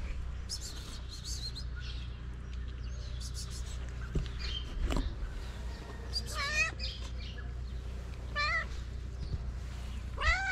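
A cat meowing three times, short meows that rise and fall in pitch, about two seconds apart, starting about six seconds in, over a low steady rumble.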